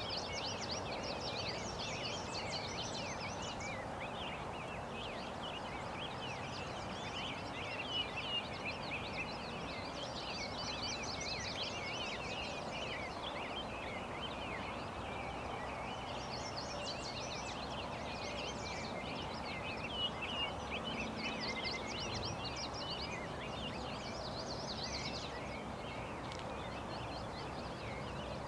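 Songbirds singing in overlapping bouts of quick chirping notes, over a steady rush of outdoor background noise.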